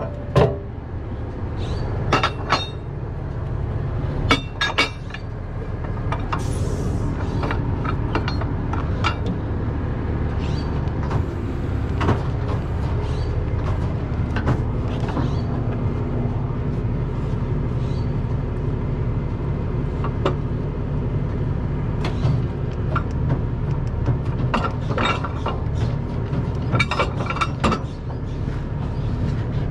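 A heavy truck engine idling steadily, with scattered sharp metallic clinks and clanks of tools and tow gear being handled, in clusters near the start and again near the end.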